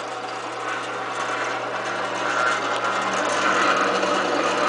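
Benchtop drill press's half-horsepower, 110-volt belt-drive motor running steadily, a hum with a whir from the belt and spindle that grows a little louder over the first few seconds. It runs smoothly, with no sign of a fault.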